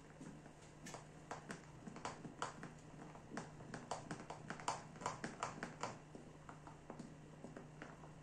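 Silicone spatula stirring flour into beaten eggs in a glass bowl, scraping and tapping against the glass in an irregular run of clicks that is busiest in the middle.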